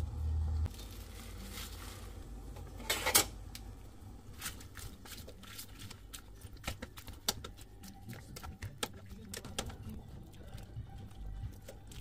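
Chopsticks stirring and poking leafy greens in a stainless steel saucepan of water, with many light clicks of the chopsticks against the pan and one louder clatter about three seconds in.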